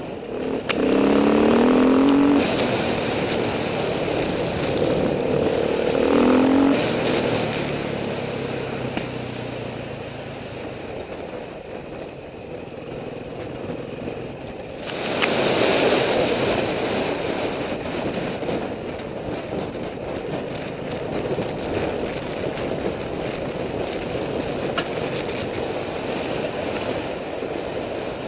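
Enduro dirt bike engine on a gravel trail, revving up in rising bursts at about one second and again near six seconds, with a sharp loud surge at about fifteen seconds, then running steadily under way.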